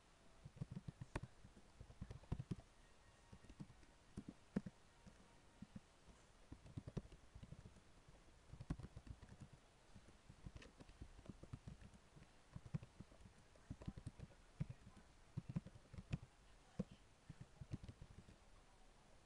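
Computer keyboard typing: faint, irregular key clicks coming in short runs with brief pauses between them.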